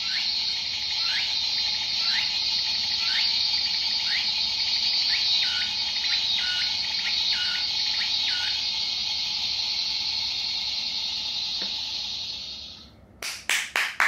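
Recorded cicada song played from small toy sound units: a steady high buzzing drone with a run of short, evenly repeated rising notes over it for the first eight seconds or so, as if more than one cicada call is playing at once. It cuts off suddenly about 13 seconds in, and hand clapping starts just after.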